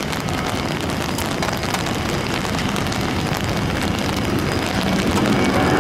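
Heavy rain roaring steadily, with raindrops ticking close by, mixed with the jet engines of a Southwest Boeing 737 rolling on a wet runway. The engine noise swells near the end.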